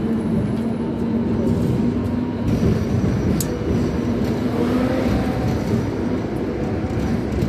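Hong Kong double-decker tram running along its rails: a steady rumble of wheels on track with a low motor hum, and a single sharp click about halfway through.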